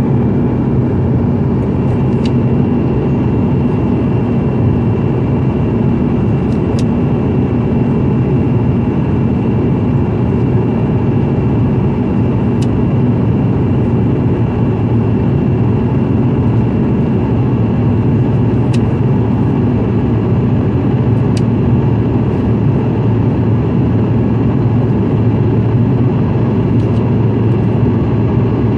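Jet airliner in flight heard from inside the passenger cabin: a steady, unbroken low roar of engines and airflow with a faint high whine over it.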